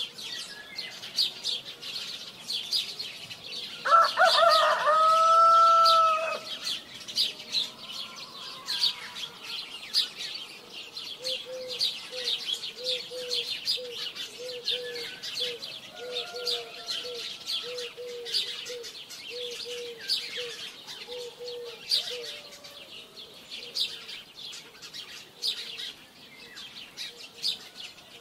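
A rooster crows once about four seconds in, ending on a long held note, over steady high chirping of small birds. Later a run of short low calls repeats about once a second.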